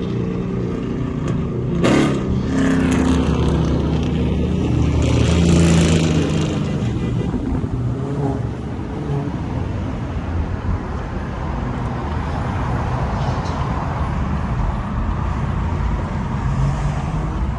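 Car being driven: steady engine and road noise, swelling louder for a few seconds around the middle with pitched engine tones, then settling back to a steady drone.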